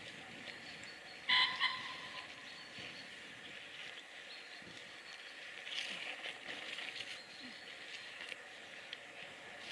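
Outdoor birdsong in the background, with one short, loud, two-part call about a second in.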